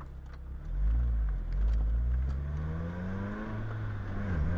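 Lotus Elise's four-cylinder engine (Toyota 2ZZ-GE) pulling the car along from low speed with the top off, its pitch rising steadily for a couple of seconds, dipping briefly near the end and then climbing again.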